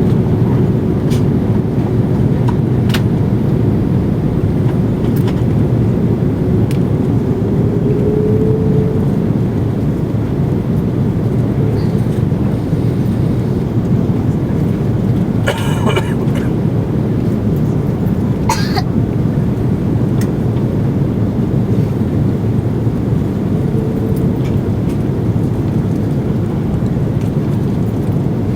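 Steady low rumble of airflow and engines inside the cabin of an Airbus A330-300 on final approach. A faint engine tone rises slightly about eight seconds in and again near the end, and there are two brief sharp sounds a little past the middle.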